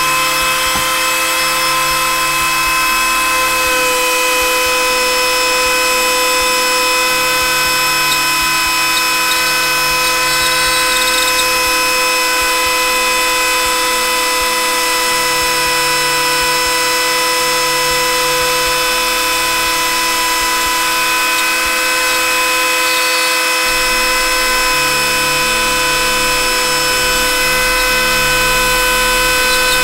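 Ryobi 18V ONE+ rotary tool station running through its flexible-shaft wand, a steady high-pitched motor whine as the bit cuts the visor opening out of a helmet shell. The load on the bit changes every few seconds as the cut moves along.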